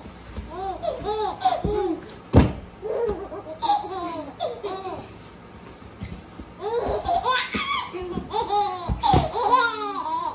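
A baby and a young girl laughing in short, high giggles that rise and fall, over and over in bursts. A sharp thump comes about two seconds in and another near the end.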